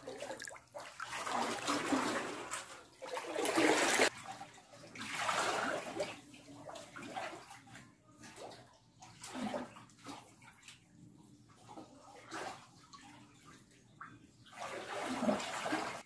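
Water splashing and sloshing in a shallow cave pool as people swim and wade through it. It comes in irregular surges, loudest about three to four seconds in and again near the end.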